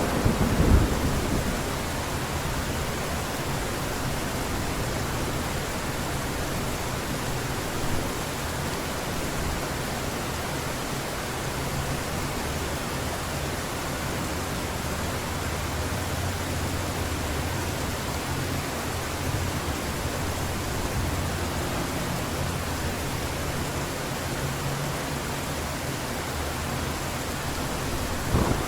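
Heavy rain falling steadily as an even hiss. In the first second, the tail of a thunder rumble dies away.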